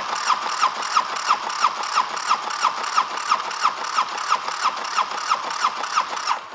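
Polaris FST 750cc turbo twin being cranked over without firing, with an even rhythmic chug of about three compression strokes a second, stopping abruptly at the end. This is a compression test on the clutch-side cylinder, which reads 148 PSI.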